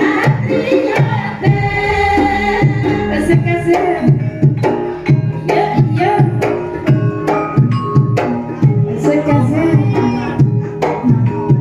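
Javanese gamelan (karawitan) ensemble playing: hand-drum strokes set a steady beat under ringing bronze metallophone and gong tones.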